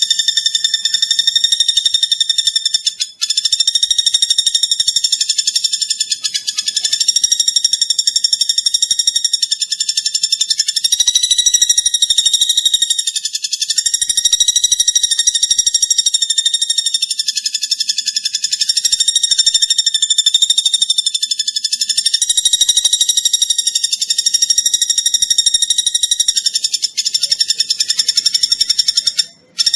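Platuk bawang woodpecker calling: a rapid, continuous rattling trill at a steady high pitch, breaking off briefly about three seconds in and again near the end.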